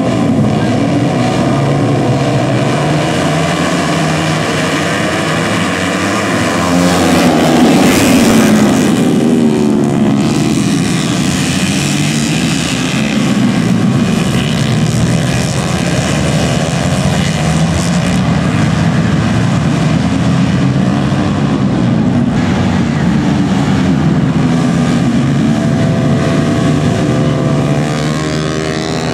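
A pack of four-stroke 150 cc underbone race motorcycles at full throttle, engines revving hard off the start and through the corners. The revs rise and fall with the gear changes, loudest as the bikes pass about eight seconds in.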